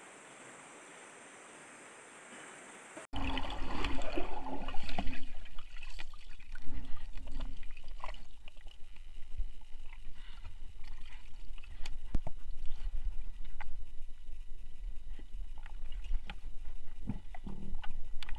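River water sloshing and gurgling close to the microphone, with a low rumble and scattered splashes and clicks. It cuts in suddenly about three seconds in, after a faint hiss.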